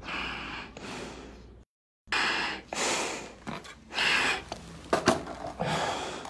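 Heavy, winded breathing through a firefighter's SCBA facepiece after a long stair climb in full gear: a run of hissing breaths in and out, each about half a second to a second long. The audio drops out for a moment about two seconds in, and a couple of sharp clicks come about five seconds in.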